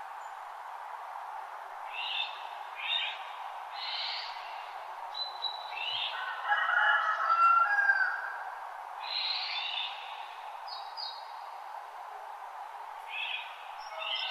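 Songbirds calling in a dawn chorus: short bursts of chirps every second or two and a longer warbling, whistled phrase in the middle, over a steady hiss.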